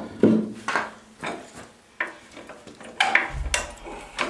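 Wooden 4x6 blocks being set down as cribbing, knocking against each other and the concrete floor: a string of sharp wooden knocks, with a short low rumble about three and a half seconds in.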